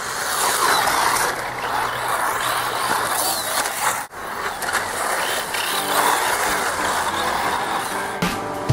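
1/12-scale electric RC desert trophy truck driving over a dirt track: its electric motor whines and the tyres run over the loose dirt. The sound breaks off sharply for a moment about four seconds in, at an edit.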